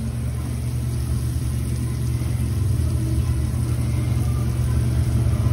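A steady low mechanical rumble, with a faint sizzle from a French-toast-battered sandwich frying in butter on a flat-top griddle.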